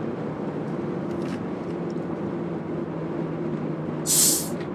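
Steady road and engine noise of a car driving along, heard from inside the car, with a low steady hum. About four seconds in comes a short, loud hiss lasting about half a second.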